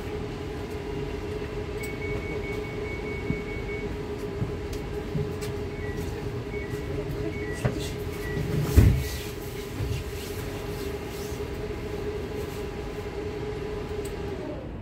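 Cabin sound of an ES2G Lastochka electric train: a steady electrical hum with faint high tones and scattered clicks, and one louder thump about nine seconds in.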